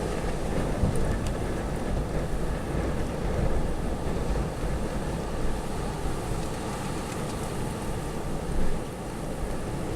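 Gusty windstorm wind blowing hard, rising and falling in gusts, with a low rumble of wind buffeting the microphone.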